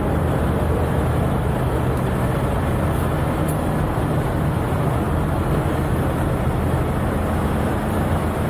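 Steady low drone of a ferry's engines filling the enclosed car deck, a constant hum with a dense rumble over it.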